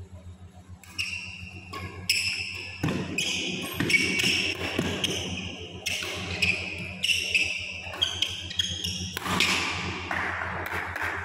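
Badminton rally in an indoor hall: racquets striking the shuttlecock and the players' shoes squeaking on the court mat. These sharp hits and short high squeaks start about a second in and keep on, over a steady low hum.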